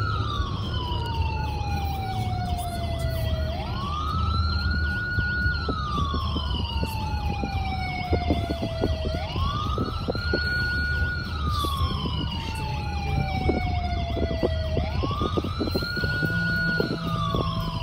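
A recorded wail siren playing inside a moving car. Each cycle rises quickly, holds its top note briefly, then falls slowly, repeating about every five and a half seconds over the car's low road rumble.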